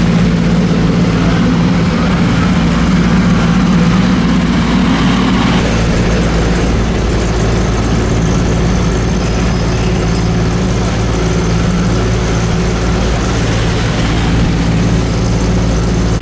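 A vehicle engine idling steadily in street traffic, a low, even hum; no siren sounds.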